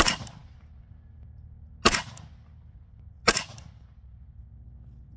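Three single rifle shots from an AK-pattern rifle, fired at uneven spacing: one at the start, one about two seconds in, and one about a second and a half later. Each shot has a short echo tail.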